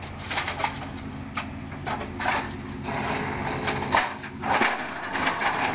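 Truck engine idling steadily, with scattered clicks and short noisy bursts over it.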